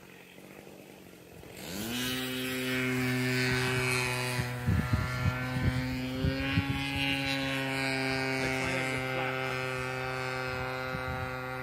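Ultra Stik RC airplane's 33cc two-stroke gasoline engine opening up from a faint idle, its pitch rising quickly, then running steadily at high throttle for takeoff and climb-out, with a few sharp crackles partway through.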